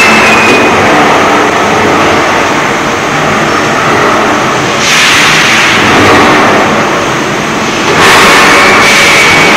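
Loud industrial noise of a large steel pipe travelling on a roller conveyor in a pipe mill, with steady machinery rumble. Bursts of hiss come about five seconds in and again about eight seconds in, and a brief high squeal sounds near the end.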